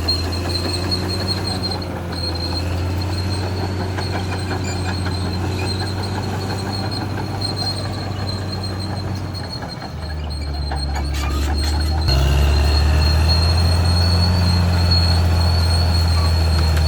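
Caterpillar D6R XL bulldozer running, its diesel engine humming steadily under a thin high squeal and clanking from the steel tracks. The engine gets louder about twelve seconds in.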